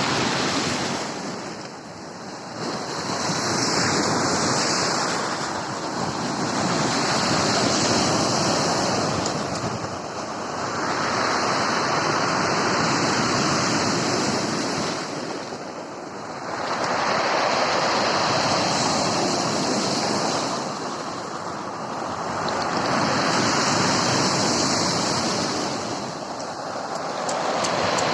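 Sea waves breaking and washing on the shore, a steady wash that swells and ebbs every five or six seconds.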